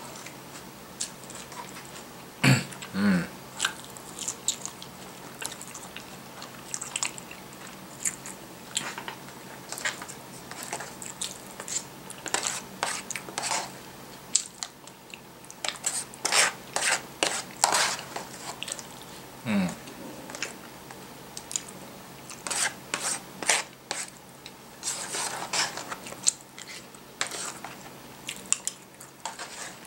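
Chewing and crunching on a breaded, deep-fried pork cutlet, in irregular clusters of short crisp crunches with pauses between.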